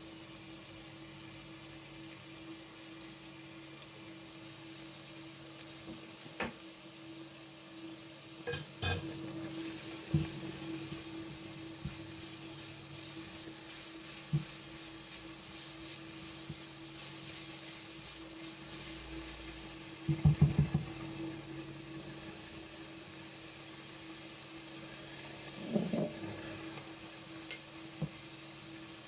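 Chopped onion, chile, garlic and celery sizzling in olive oil in a stainless steel pot, stirred with a spatula that knocks and scrapes against the pot now and then; a quick cluster of louder knocks comes about twenty seconds in.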